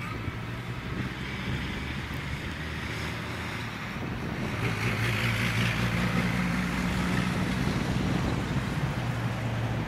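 1902 Beyer Peacock 2-6-0 steam locomotive C22 moving slowly with its carriages: a steady low hum that swells with a rush of hiss about halfway through, with wind noise on the microphone.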